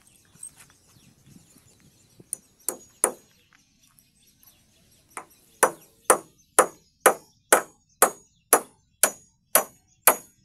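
Hammer driving a nail into a timber frame: three blows a little over two seconds in, then a steady run of strikes, about two a second, from the middle on, each with a short metallic ring.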